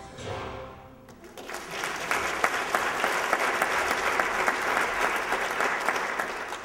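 Audience applauding after a song: the last of the music fades in the first second, then clapping starts about a second and a half in and holds steady.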